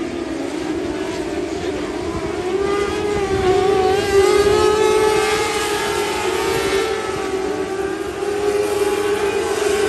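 Several lightning sprint car engines running flat out in a race, a steady whining drone that wavers in pitch and gets louder about three seconds in as the cars come past.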